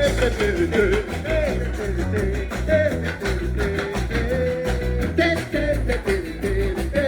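Band music with a steady beat: a melody line that bends up and down over bass and drums, with no words sung.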